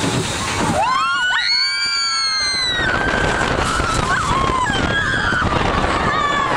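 A girl screaming on a fast-moving roller coaster: one long high scream starts about a second in and lasts about two seconds, followed by fainter, shorter screams. Throughout, a steady rush of wind on the microphone and the rumble of the coaster train on its track.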